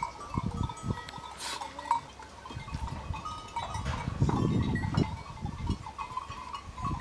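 A flock of sheep bleating, the loudest call about four seconds in, with small bells on the animals tinkling.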